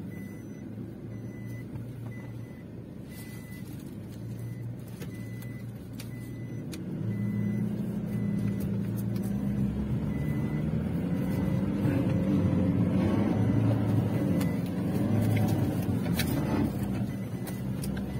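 Pickup engine running as it crawls over a rutted dirt track, heard from inside the cab, growing louder about seven seconds in. A faint high beep repeats about once a second through the first half.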